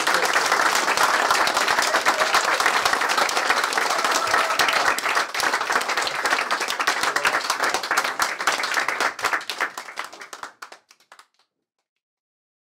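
A roomful of people applauding after a speech: many hands clapping steadily, dying away about ten and a half seconds in.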